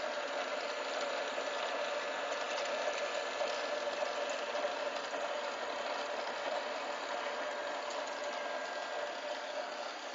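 IBM 029 keypunch running idle, a steady mechanical hum with no punching strokes.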